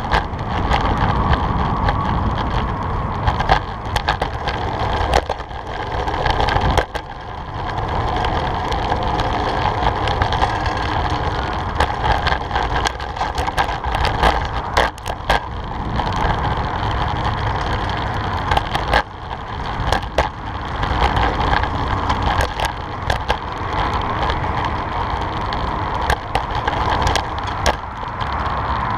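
Fixed-gear bicycle riding over concrete: steady wind rush on the microphone and tyre rumble, broken by frequent sharp knocks and rattles as the bike takes bumps and transitions.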